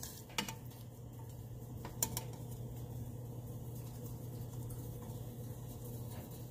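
Metal kitchen tongs clicking lightly against a glass baking dish a few times as the beef short ribs are turned, over a steady low hum.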